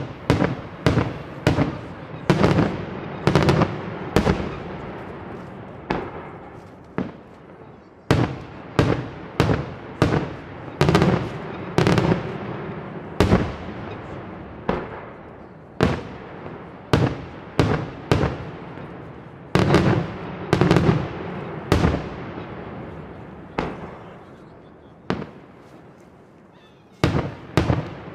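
Daytime fireworks display: a rapid, irregular run of loud bangs from aerial shells bursting, each trailing off in an echo. The bangs thin out to a brief lull near the end, then start again.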